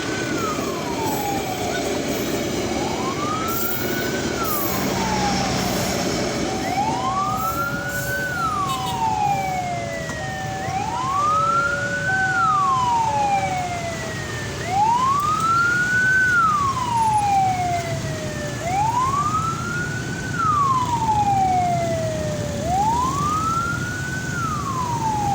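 A railway level-crossing warning siren and an ambulance siren sounding together. One wails up and down, climbing quickly and falling slowly, about every four seconds throughout. The other alternates between two steady tones for several seconds in the middle, then stops.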